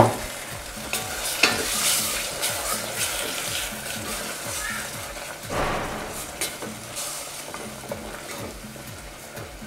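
Tomato sofrito with vegetables sizzling in a stainless steel pot, stirred with a wooden spoon that scrapes and knocks against the pot now and then.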